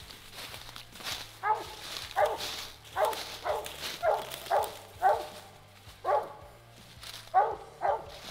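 Walker coonhound barking: about ten short, loud barks, half a second to a second apart.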